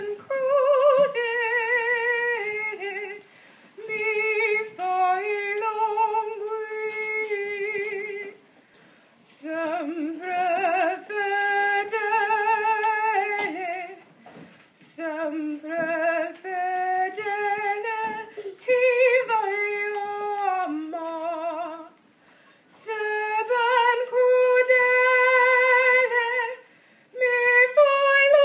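A young woman singing solo and unaccompanied. She sings phrases of a few seconds with long held notes and vibrato, breaking for brief breaths about five times.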